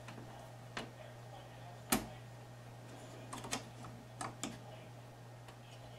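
Scattered light clicks and knocks of plastic and metal parts as the cassette carriage mechanism of a Magnavox DVD-VCR is handled and worked loose by hand. The loudest click comes about two seconds in, over a faint steady low hum.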